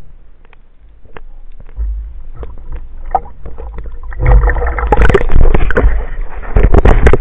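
Water splashing and churning at the sea surface around a speargun-mounted underwater camera, heard through the housing. It starts as low water rumble with scattered clicks and turns into loud, dense splashing with sharp crackles from about four seconds in.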